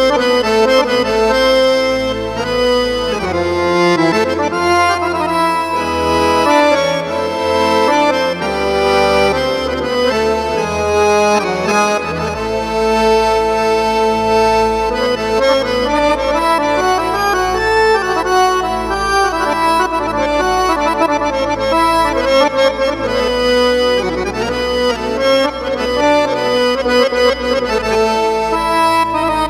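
Arabic accordion voice on a Yamaha PSR-A5000 arranger keyboard playing an ornamented melody over held bass notes that change a few times.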